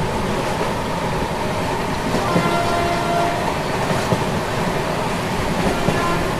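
Indian Railways passenger train (the Chennai Express) running along the track: a steady rumble and rattle of the moving coach, with a few faint steady tones a couple of seconds in.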